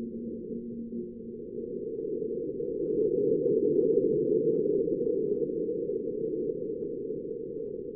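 Marsquake recorded by NASA InSight's SEIS seismometer, sped up into audible sound: a low, muffled noise that swells to its loudest about four seconds in and then slowly fades, with a few faint short crackles. Two faint steady hum tones fade out in the first second or so.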